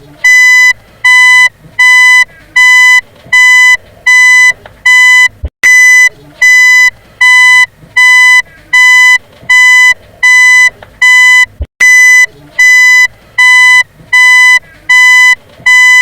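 Car reversing beeper: a loud, high electronic beep repeating evenly, a little under two beeps a second. A faint click comes about every six seconds.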